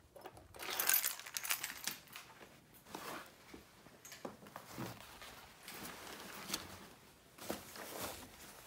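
Close rustling and handling of small objects on a wooden table. Fabric is rustling in uneven bursts, with scattered light clicks and taps as things are picked up and set down. The busiest rustling comes about a second in.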